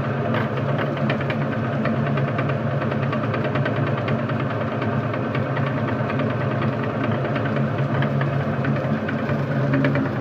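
Electric meat grinder running steadily, its motor humming, with many small crackles as material is crushed through it.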